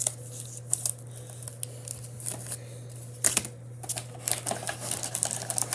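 Foil booster packs crinkling as they are handled, with scattered sharp clicks and taps, the loudest a little over three seconds in. A steady low hum runs underneath.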